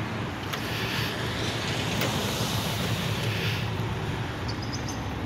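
Police patrol car engine idling, a steady low rumble.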